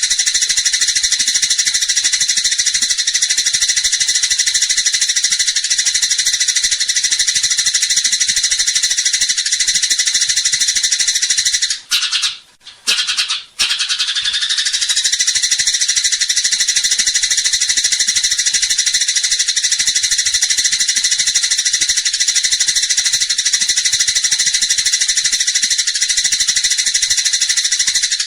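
Eurasian tree sparrows giving a fast, dense, rattling chatter of excited fighting calls. It runs on without pause except for two short breaks about twelve and thirteen and a half seconds in.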